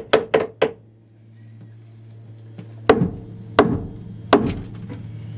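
Hand hammer blows into the bilge: a quick run of sharp strikes in the first second, then after a pause a few slower, spaced blows, over a steady low hum.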